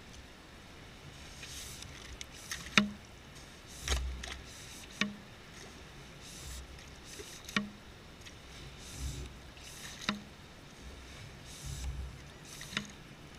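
Homemade ghost shrimp pump worked in wet beach sand: a sharp click every two to three seconds as the plunger is stroked, with bursts of hiss and squelching sand and water between.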